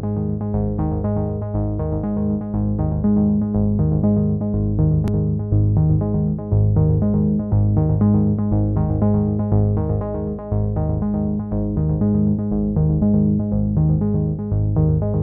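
Background music: an electronic synthesizer and keyboard track with a steady pulse of short repeated notes over a sustained bass.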